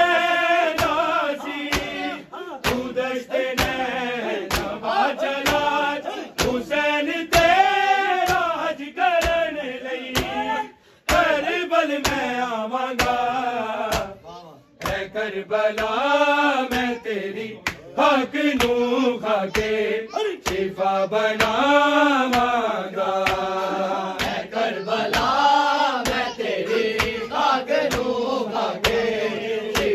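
Male voices chanting a Punjabi noha (Shia lament), kept in time by steady rhythmic beats of matam, about one and a half strikes a second. The chant breaks off briefly twice, near the middle.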